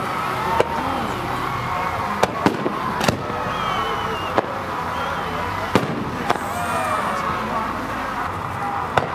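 Fireworks going off: sharp bangs and pops roughly every second, about eight in all, the last near the end.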